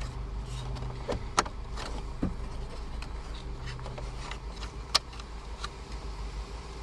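Hard plastic clicks and light rattles as a BMW F11 centre console trim panel around the gear selector is handled and its cables are seated, with two sharper clicks about a second and a half and five seconds in, over a steady low hum.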